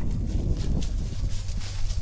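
Footsteps over a steady low rumble.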